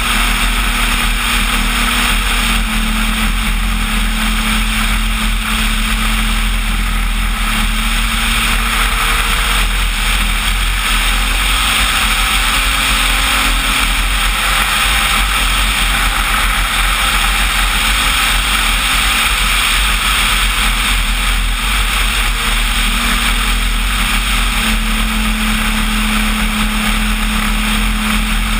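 Onboard sound of a Planet-Hobby Cessna 185 RC floatplane in flight: its roughly 3 kW motor and propeller drone steadily, the hum shifting in pitch a few times with the throttle, under heavy wind rush on the on-board camera's microphone.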